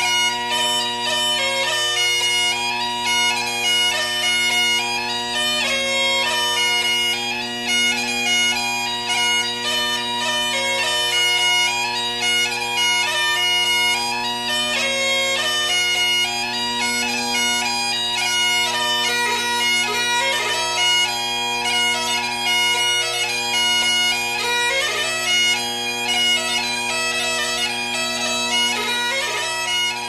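Bagpipes playing a tune over steady drones.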